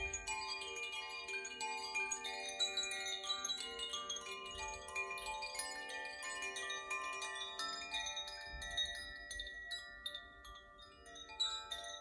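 Koshi and Zaphir chimes swayed by hand, their clappers striking tuned rods at random so many bell-like notes ring and overlap. The strikes thin out a little about ten seconds in, then come thicker again near the end.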